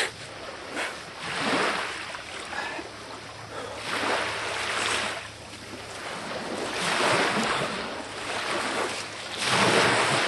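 Lake water washing and splashing in irregular swells about a second long, several times, the last near the end the loudest.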